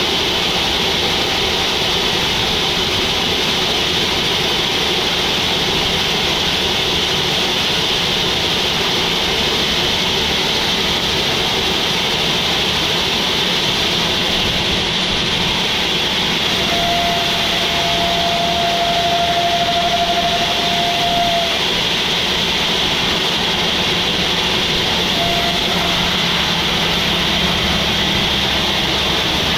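Sawmill machinery running steadily, a continuous loud mechanical drone with a hiss on top, as at a bandsaw mill milling a log. Partway through, a thin steady whine sounds for about five seconds and then stops.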